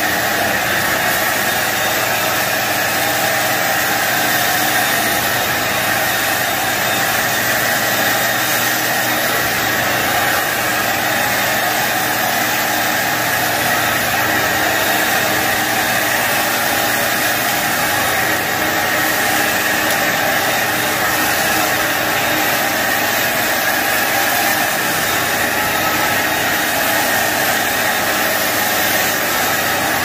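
Portable carpet extractor's vacuum motor running steadily, drawing air and cleaning solution up through the floor wand as it passes over the carpet: an even, unbroken whoosh.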